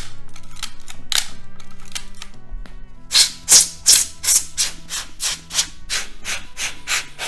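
Nikon EM camera's shutter released twice, sharp clicks at the start and about a second in, with faint background music under it. From about three seconds a quick run of short, hissy strokes follows, about three to four a second.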